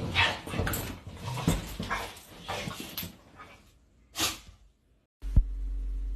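Two Dalmatians play-fighting, whining and yipping in quick, irregular bursts. About five seconds in they give way to a steady low hum.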